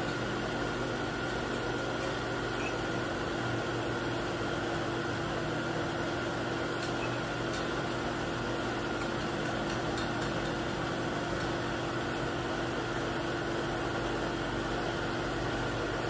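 Sharp HMV CNC knee mill running a pocket-milling program: its spindle and drives give a steady mechanical hum with a constant high whine as the table feeds the block under the cutter.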